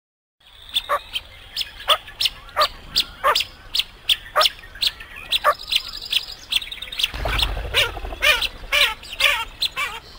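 Teal ducks calling: a quick run of sharp, steeply falling whistled calls, about two a second, growing busier with a low rumble underneath from about seven seconds in.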